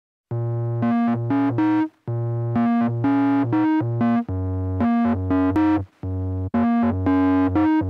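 Background music: a synthesizer keyboard riff over a steady bass line, its short phrase repeating about every two seconds.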